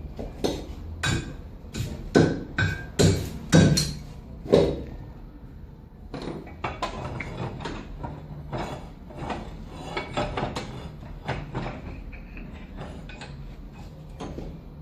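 Hammer blows on metal, with a short ringing after each strike: about six heavy blows in the first five seconds, then a long run of lighter, quicker knocks. This is the work of driving out a wheel bearing and seating a wheel hub.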